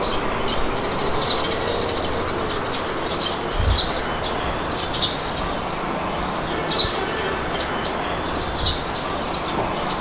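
Steady wind blowing, with birds giving short high chirps about once a second over it. A low thump comes about four seconds in.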